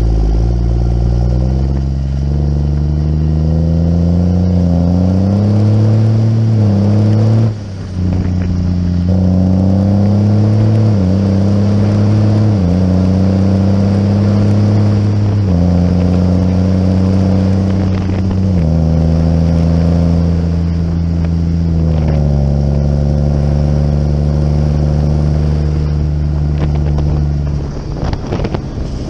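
Site dumper's diesel engine under load as it is driven along a road, its pitch climbing over the first several seconds, then stepping up and down every few seconds with throttle and gear changes. Near the end the engine eases off and wind noise on the microphone takes over.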